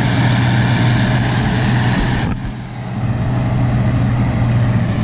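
John Deere diesel tractor engine running steadily as it pulls a round baler through a hay field, a constant low drone that drops away briefly about halfway through.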